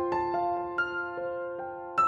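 Gentle background piano music: slow single notes, each held and overlapping the next, a new one every quarter to half second.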